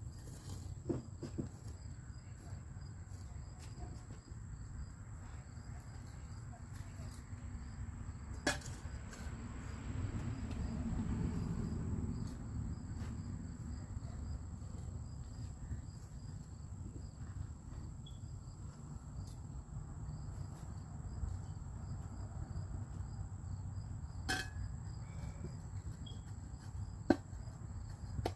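Insects trilling steadily in a high, pulsing drone over a low outdoor rumble, with three sharp knocks scattered through it, the loudest near the end.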